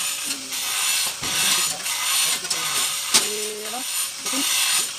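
A hand tool working in repeated rasping strokes, about one and a half a second, with short pauses between them, and one sharp metallic click about three seconds in.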